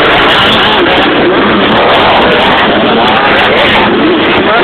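Motocross motorcycle engines revving up and down as bikes ride the track. The sound is loud and continuous, and the engine pitch keeps rising and falling.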